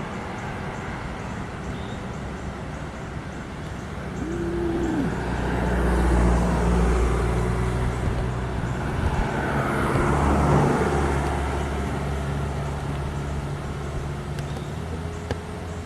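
Road traffic going by: motor vehicles passing with a steady engine hum, swelling louder as vehicles pass about six and ten seconds in.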